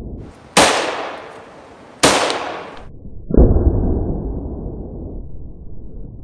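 Blank-firing pistol shots: two sharp cracking reports about a second and a half apart, each with a short ringing tail, followed about a second later by a duller, muffled bang that fades slowly.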